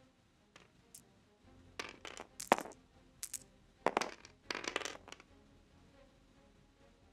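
Eight-sided plastic game dice thrown onto a play mat, clattering and tumbling in several quick rattles over about three seconds, the sharpest hit about two and a half seconds in.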